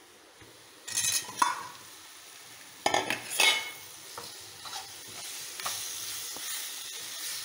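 Pre-cooked pork pieces tipped into a hot pan of fried onions and chillies, with two loud bursts of sizzling and stirring about one and three seconds in as the meat hits the oil. A steady sizzle follows as they are stirred, growing a little louder toward the end.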